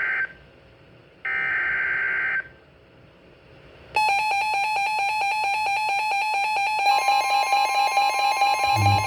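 NOAA Weather Radio SAME digital header bursts, the coded start of an Emergency Alert System severe thunderstorm warning: the tail of one harsh buzzy burst and then a second, each about a second long. About four seconds in, a loud electronic alert tone with a rapid repeating pulse begins, and a steady higher tone joins it about seven seconds in.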